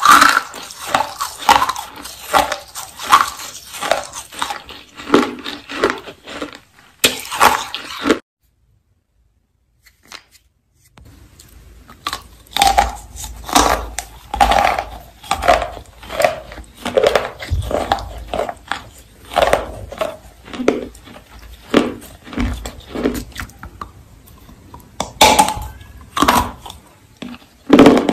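Baked clay rolls being bitten and chewed close to the microphone: a run of dry, crisp crunches. They stop dead about eight seconds in and start again some three seconds later.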